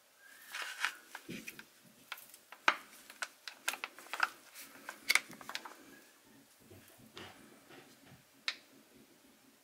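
Flexible plastic gear oil pouch crinkling in gloved hands as it is squeezed to empty it into the differential fill hole: irregular sharp crackles, thick through the first six seconds, then sparse.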